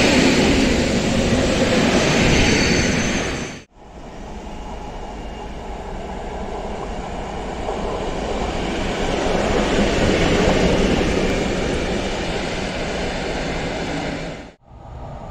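An EN57 electric multiple unit passing close by. After an abrupt cut, an SM42 diesel-electric shunting locomotive runs light along the station tracks, growing louder to a peak about ten seconds in and then easing off.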